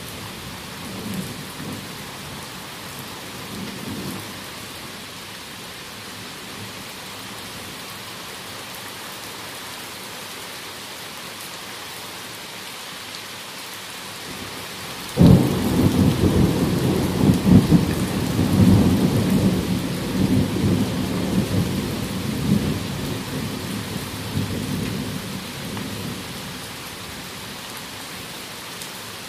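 Steady heavy rain of a thunderstorm, with a few low rumbles of thunder in the first seconds. About halfway through, a sudden loud thunderclap breaks in and rolls on in rumbles for about ten seconds, slowly dying away.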